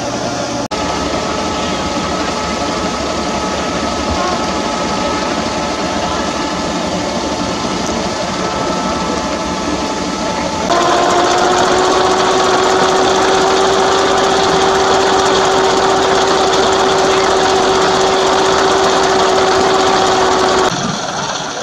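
1916 fire engine's engine running steadily to drive its hose pump, a rapid mechanical running with steady whining tones over it. The sound jumps abruptly louder about eleven seconds in and drops back near the end.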